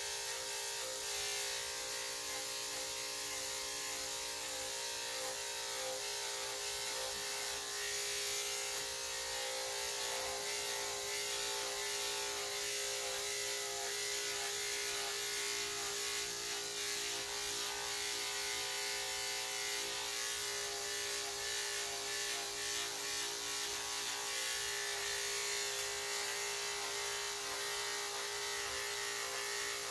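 Corded electric dog-grooming clippers running with a steady, unchanging hum as they shave a heavily matted coat down short.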